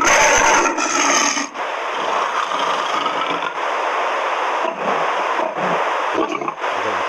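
The Google 3D AR lion's recorded roar, played by the phone. It is loudest in the first second and a half and is followed by a steady raspy noise.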